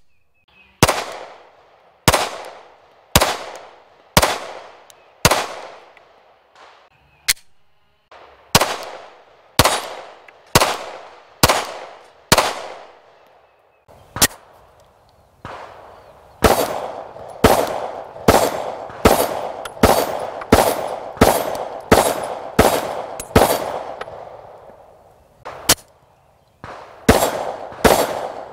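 Repeated 9mm pistol shots, each a sharp crack that trails off briefly. They come about one a second at first, then speed up to roughly two a second from about halfway through.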